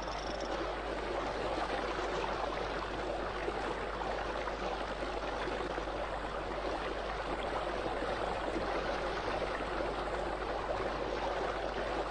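Steady noise of a turbulent stream: fast-flowing water running evenly.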